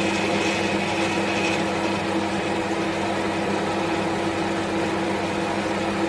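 Saturn 700 W microwave oven running on a heating cycle, a steady electrical hum with the whir of its fan and turntable. The hum is the sign that the oven works again after its blown fuse was replaced.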